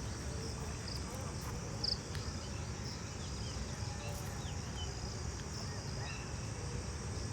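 Steady high-pitched chorus of crickets or similar insects, with short bird chirps here and there over a low steady rumble.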